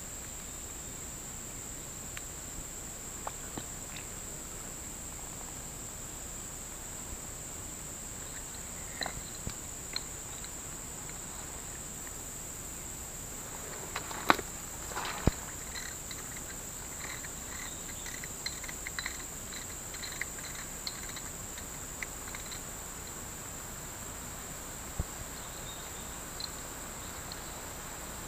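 Steady high-pitched drone of insects, with scattered small clicks and two sharper knocks about halfway through, followed by a run of faint short chirps.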